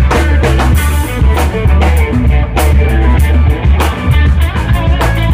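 Rock music played on drum kit and guitar over a loud bass line, with a steady beat.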